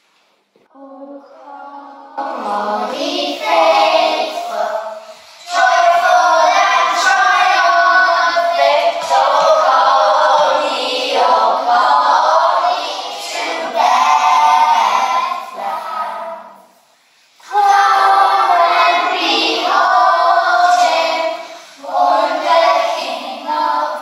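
A group of young children singing together in chorus, starting about a second in, with a short pause about two-thirds of the way through.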